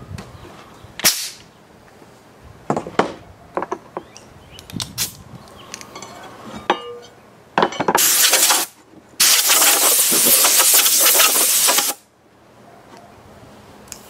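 Compressed air hissing from the open end of a pneumatic nailer's air hose in two loud blasts, a short one about 8 seconds in and a longer one of about three seconds just after. Before them come a few sharp knocks.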